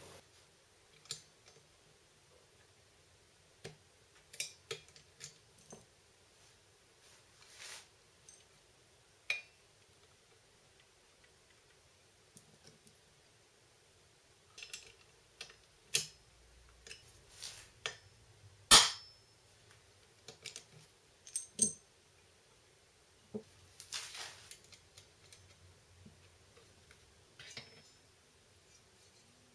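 Scattered clicks and clinks of metal engine parts being handled and fitted to a small engine, with one sharper knock about two-thirds of the way through.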